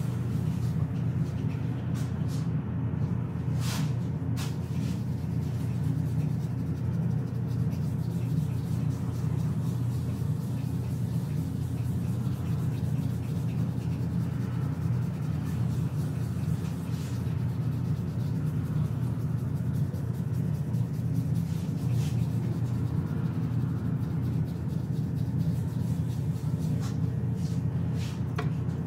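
Steady low motor hum, unchanging throughout, with a few faint clicks.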